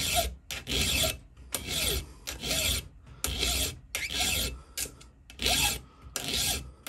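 A flat file rasping across the steel raker (depth gauge) of a Stihl .404-pitch chainsaw chain, in about eight steady back-and-forth strokes with a short pause about two-thirds of the way through. The strokes are lowering the depth gauge to set the chain's cutting depth.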